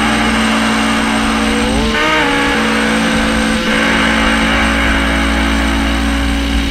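Loud, distorted lo-fi noise-rock music: a fuzzy guitar drone holding steady notes, with one note bending upward about two seconds in.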